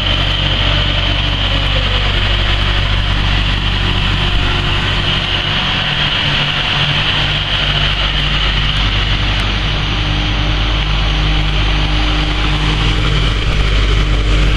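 An engine running steadily at a constant speed: a low, even hum with a steady high whine above it.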